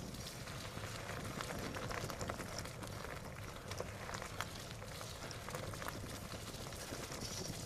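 Fat-tire bicycle rolling along a dirt trail: a steady low rumble from the tyres with many small, irregular crackles and ticks from leaves and grit under the wheels.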